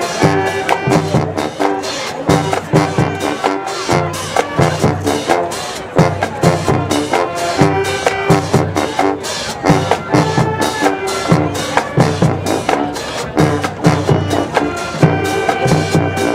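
High school marching band playing: brass holding sustained chords over a drumline beating a quick, steady rhythm.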